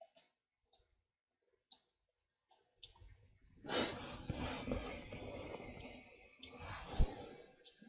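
Computer mouse and key clicks, a few scattered single clicks. After about four seconds comes a few seconds of soft noise with no clear pitch.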